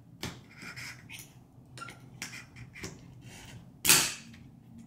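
Small steel punch clicking and scraping against the pins as they are pushed out of a Ruger PC Carbine's fire control group and receiver: a series of light clicks and scrapes, with a louder scrape about four seconds in.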